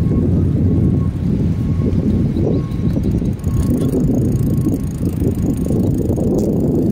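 Wind buffeting the microphone of a camera on a moving bike, a dense low rumble, with a faint high tone repeating about once a second.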